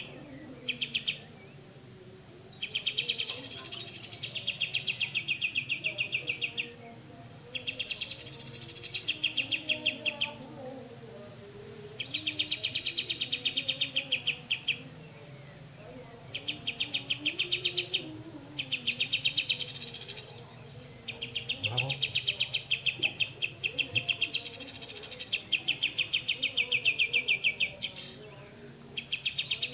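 Cucak jenggot (grey-cheeked bulbul) giving its rapid, buzzy 'besetan' trill in repeated phrases of one to four seconds with short pauses between them. A thin steady high tone runs underneath.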